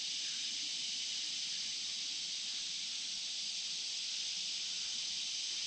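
Steady high-pitched drone of insects, an even hiss with no breaks or other events.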